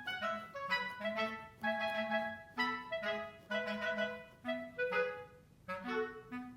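Background music: a melody of short, separate notes changing pitch every fraction of a second.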